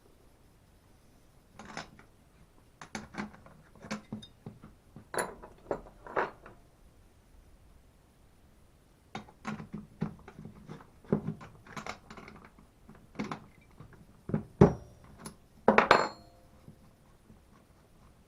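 Hand tools and small metal chainsaw parts clinking and knocking as they are handled and set down, in two spells of scattered clicks with a pause of a couple of seconds between them.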